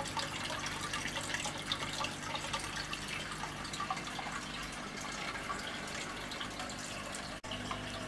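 Steady trickling and bubbling of water circulating in a marine aquarium, with a faint low steady hum underneath.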